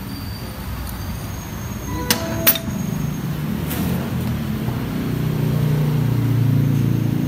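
A steel T-handle socket wrench clinks twice on metal, about two seconds in, as it is set down. Under it a motor vehicle engine runs with a steady low hum that grows louder in the second half.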